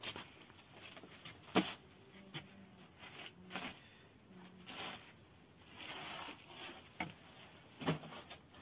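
Thin flatbread being handled at an earthen tandoor oven: soft rustling and scraping with scattered sharp knocks, the loudest about a second and a half in and two more near the end.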